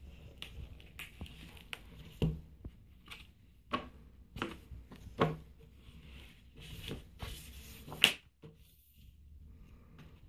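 Heavy hardcover book being opened and leafed through by hand: pages rustling and flapping over, with a few sharper slaps of pages and cover, the loudest about eight seconds in.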